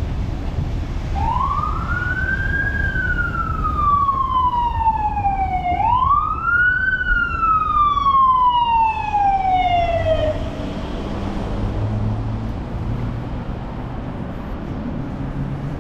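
Emergency vehicle siren wailing in two cycles, each rising quickly and then sliding slowly down, dying away about ten seconds in. Steady street-traffic rumble runs underneath.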